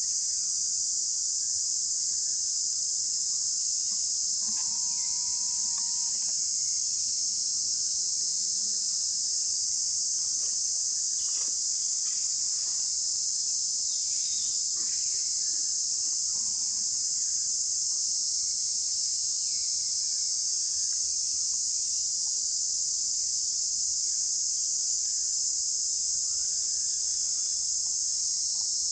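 A dense, high-pitched insect chorus drones steadily throughout, without a break.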